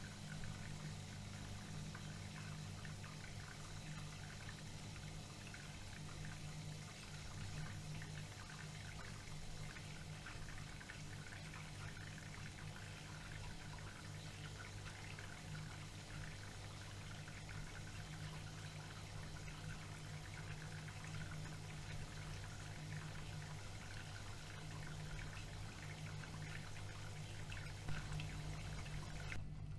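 AEG ÖKO-Lavamat washing machine taking in water: water pouring and trickling into the drum over a steady low hum, with a couple of short knocks near the end.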